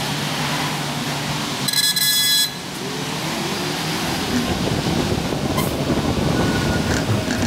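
Steady running and road noise of a moving vehicle, with a loud electronic beep lasting under a second about two seconds in.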